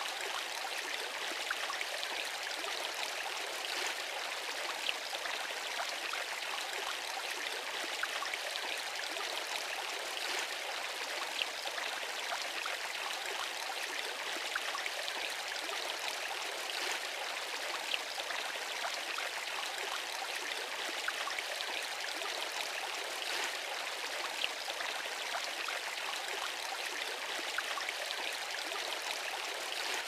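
Water pouring off a roof into a pond: a steady splashing rush of the falling stream hitting the water, with scattered sharper drip splashes.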